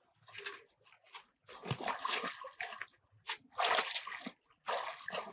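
Water splashing in four or five bursts.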